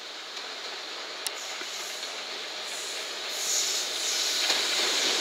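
JR Freight EF66 electric locomotive approaching at the head of a freight train, the running noise of its wheels on the rails growing steadily louder, with a high hiss strengthening over the last two seconds and a single sharp click about a second in.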